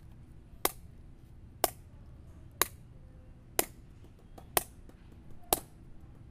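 Sharp clicks keeping a steady beat of about one a second, a time-keeping pulse for rhythm practice, with a few fainter taps between some of them.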